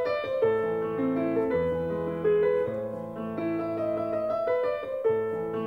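Instrumental intro music: a melody of sustained notes over lower bass notes, moving at an even pace.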